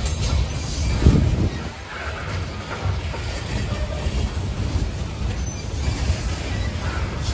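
Freight train of CSX steel gondola cars rolling past close by: a steady low rumble of steel wheels on rail, with a heavier knock about a second in. There is faint wheel squeal early on.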